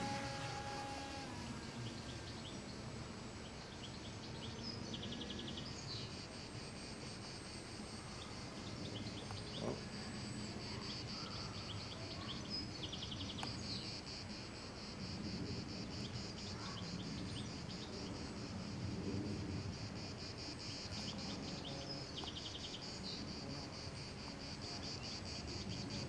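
Insects chirring steadily in a high, rapidly pulsing band, with short separate trills cutting in now and then.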